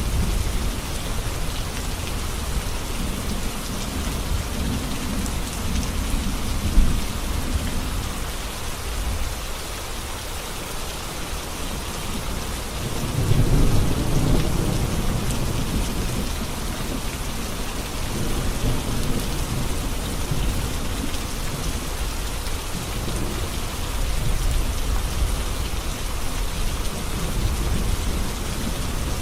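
Heavy rain falling steadily on a road, with low rolling rumbles of thunder that swell up several times, the strongest about halfway through. A single sharp tap sounds about a quarter of the way in.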